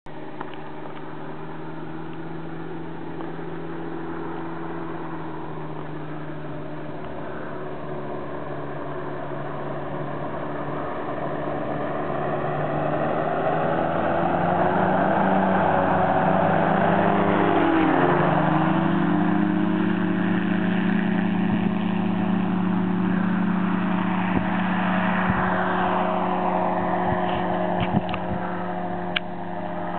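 Microlight aircraft engine and propeller passing low overhead: a steady drone that grows louder, drops suddenly in pitch a little past halfway as the aircraft goes by, then carries on at the lower pitch. A few short clicks near the end.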